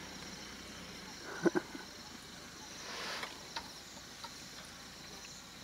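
Steady high chirring of insects, with a pair of sharp knocks about a second and a half in and a few fainter clicks later.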